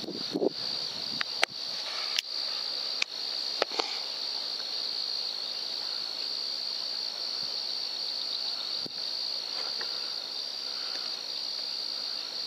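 Steady high-pitched chorus of crickets trilling. A few light clicks come in the first four seconds.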